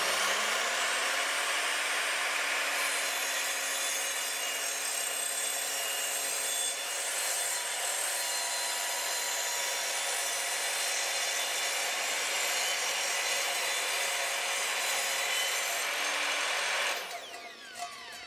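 Evolution R255SMS sliding mitre saw running with its 255 mm multi-material blade and slicing through a softwood scaffolding board in one long, steady cut. The motor whine rises to speed in the first second. Near the end the motor is switched off and the blade spins down.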